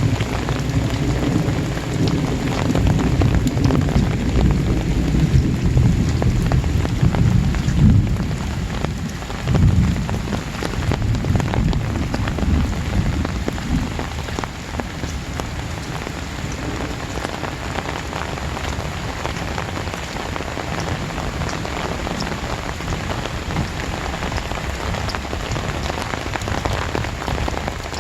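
Very heavy rain pouring down steadily. A low rolling rumble of thunder under it in the first half dies away about halfway through.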